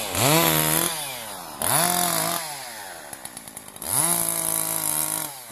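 Petrol chainsaw revved in short bursts, three times, each rising quickly to full speed, holding briefly, then dropping back toward idle, as it bucks a felled birch trunk.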